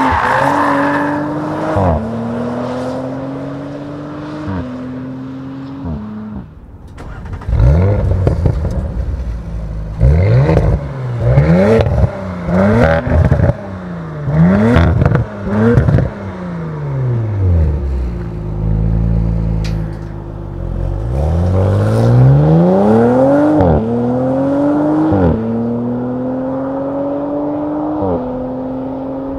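Audi RS5 Competition Plus twin-turbo V6 exhaust pulling through the gears, its note climbing and dropping back at each upshift. In the middle it revs sharply up and down several times and settles briefly to a steady low note, then accelerates through the gears again.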